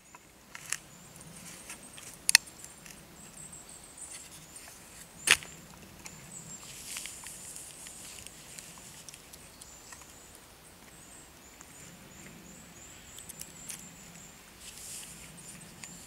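Quiet woodland ambience with a faint high-pitched sound that comes and goes, and a few sharp clicks, the loudest about five seconds in.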